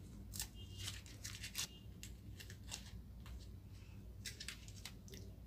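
Faint, irregular crinkling and tearing of a gold foil chocolate wrapper being unwrapped by hand.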